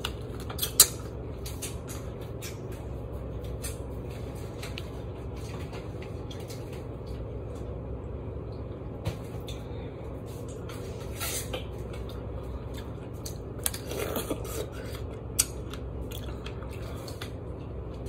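Someone eating juicy fruit: sparse wet mouth clicks and smacks, the sharpest about a second in and a small cluster of them around two-thirds of the way through, over a steady low hum.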